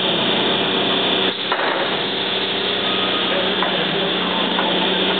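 Copper-wire processing machinery running with a loud, steady drone and hum. A brief dip and a single knock come about a second and a half in.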